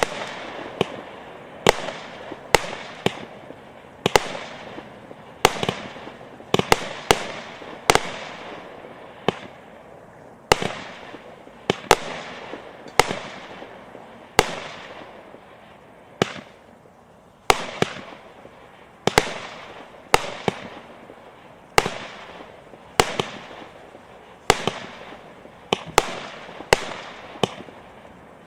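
A 120-shot, 0.6-inch consumer fireworks battery (cake) firing in a continuous sequence: sharp reports about one to two a second, some in quick pairs, each with a short fading tail.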